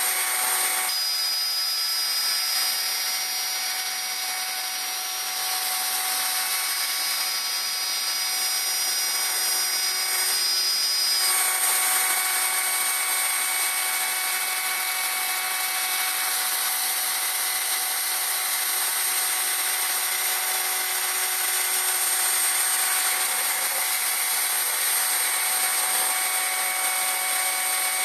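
CNC router spindle running steadily while its end mill cuts into plywood, a continuous rasping wood-milling noise with steady whining tones over it. An extra high whine joins about a second in and stops about eleven seconds in.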